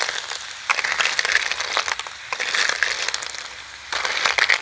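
Cooked snails in their shells rattling and scraping against each other and a metal pan as a metal spoon stirs them, in several uneven spells of clattering.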